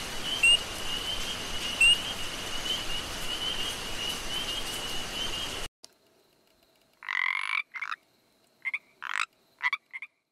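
A steady high-pitched chirring chorus with hiss behind it cuts off suddenly about halfway through. Then, over near silence, frogs croak: one longer call followed by several short ones.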